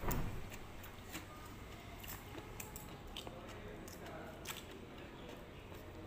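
Clear plastic fork clicking and scraping against a clear plastic bowl of green papaya salad, in scattered short clicks, with quiet chewing. A louder knock comes right at the start.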